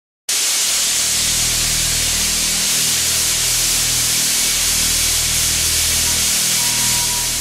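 Hue-Tronic colour sorter running on chickpeas: a steady hiss over a low machine hum, with the chickpeas shaking in its steel feed hopper.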